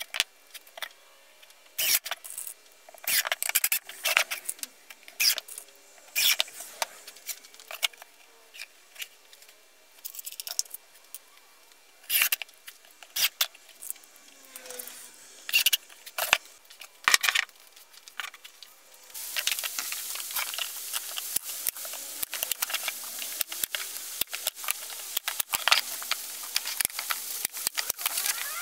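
Cordless drill driving screws into a plywood frame in short bursts, mixed with clicks and rattles of screws being handled. About two-thirds of the way through, a steady rustling hiss sets in.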